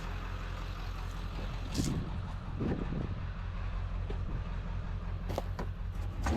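A vehicle engine idling steadily as a low hum, with a few short knocks and rattles from the refrigerator being handled.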